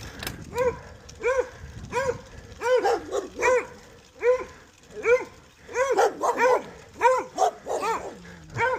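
Dog barking repeatedly, about one to two barks a second, with barks overlapping in the middle.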